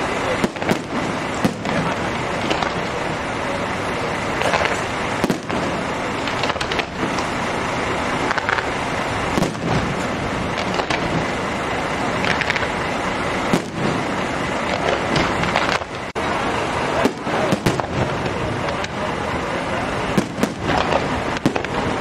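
Fireworks display: aerial shells bursting in many irregular sharp bangs, a dozen or more, over a steady background noise.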